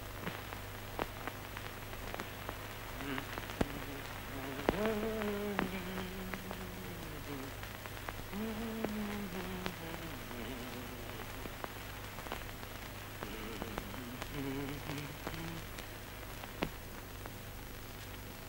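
Faint humming of a tune in a few held, slowly gliding notes, over the scattered crackle and steady low hum of an old film soundtrack.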